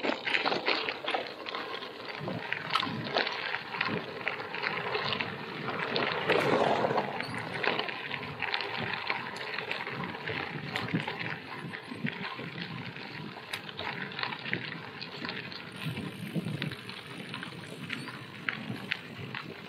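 Wind buffeting a handlebar-mounted action camera's microphone while riding a Lauf Anywhere gravel bike. Tyres crunch over gravel underneath, with many small clicks and rattles.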